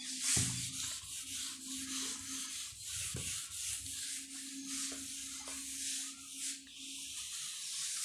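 A duster wiping marker off a whiteboard: repeated rubbing strokes, a dry hiss with each pass.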